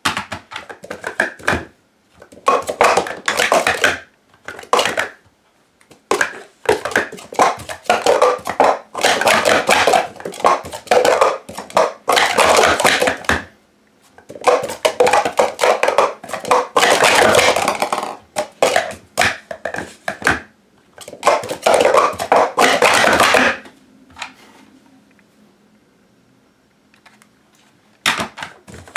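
Plastic sport stacking cups clattering on a stacking mat as they are rapidly stacked up into pyramids and brought back down. The clicks come in quick runs of a second or few, with short pauses between runs and a longer pause near the end.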